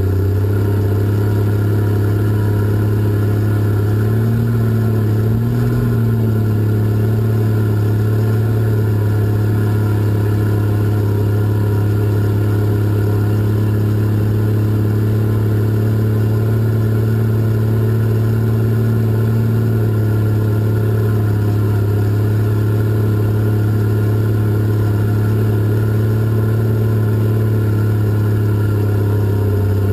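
Cat 627 scraper's diesel engine running steadily while hauling dirt, heard from the operator's cab, with a brief wavering in pitch about four to six seconds in.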